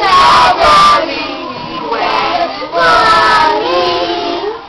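A group of young children singing together, loudest in the first second and again about three seconds in.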